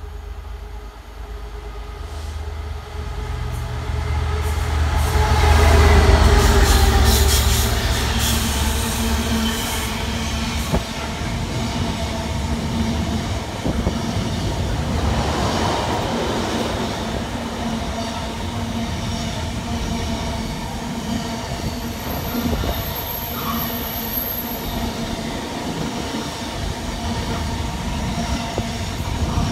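Freight locomotive approaching and passing, loudest about six seconds in, followed by a long train of loaded intermodal container wagons rolling past with a steady wheel rumble and rail clatter.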